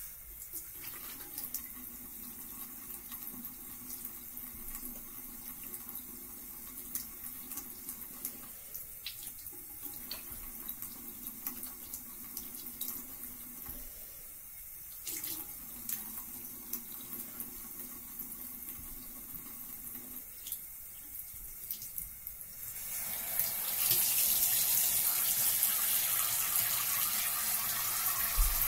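Bathroom sink faucet running steadily into the basin, the stream broken three times as hands scoop water to rinse cleanser off a face. Near the end the running water grows louder and brighter.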